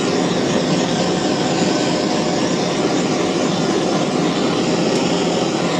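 Blowtorch (blow lamp) flame burning with a steady rushing noise as it heats an aluminium gearbox casing, warming it so the bearings will drop into their housings.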